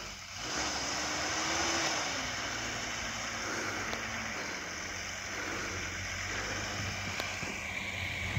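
A jeep's engine working hard through deep snow, heard from a distance under a steady hiss; its note rises a little, drops about two seconds in and fades out after about four seconds.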